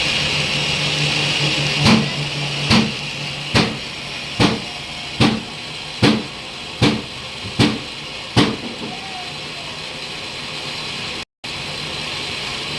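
Lathe running with a steady hum and a low tone. Nine evenly spaced heavy knocks, a little over one a second, come from about two seconds in to just past eight seconds, each ringing briefly. The sound cuts out for a moment near the end.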